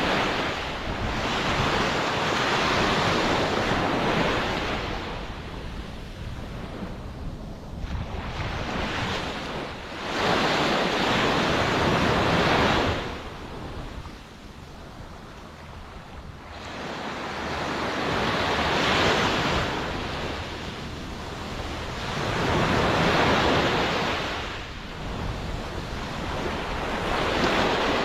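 Ocean waves breaking and washing onto the shore, the surf rising and falling in surges every few seconds.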